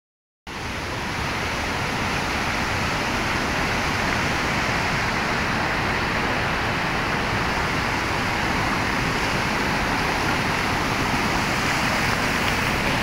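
Whitewater rapids of a mountain river rushing over boulders: a steady, loud roar that cuts in about half a second in.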